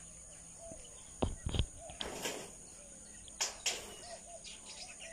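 Faint outdoor ambience: a steady high insect chirring with soft short bird chirps scattered through it, and a few brief knocks, two close together about a second in and two more past the middle.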